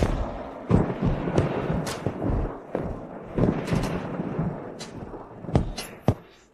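A run of heavy booming hits, about one every half second to a second, over a dense low rumble, cutting out abruptly shortly before the end.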